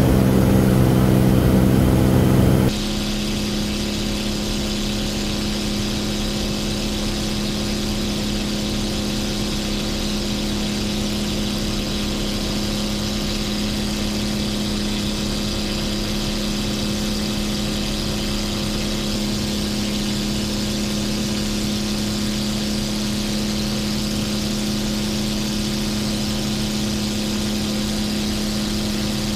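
Titan T-51 Mustang's Suzuki V6 with short stack exhausts running steadily in flight, heard from inside the cockpit as an even drone with a strong hum. About three seconds in, a louder engine drone of a different pitch gives way abruptly to it.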